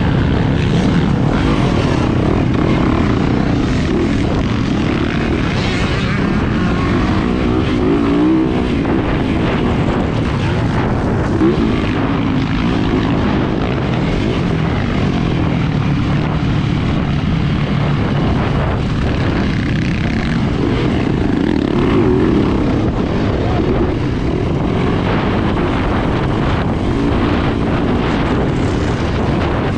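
Yamaha YZ450FX dirt bike's single-cylinder four-stroke engine under hard riding, revving up and down again and again.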